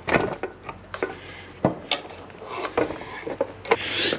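A handful of sharp metallic clinks and knocks as a motorcycle rear wheel with its drum-brake panel is handled and rolled up onto wooden boards.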